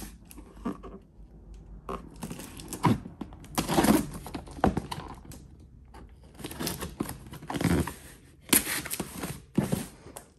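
Handling noises as a battery on an adapter is fitted to a cordless shrub trimmer: irregular hard plastic clicks and knocks with some rustling, a few sharper clicks standing out.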